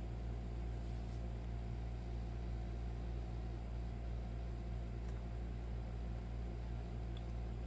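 Steady low hum with faint hiss: background room tone.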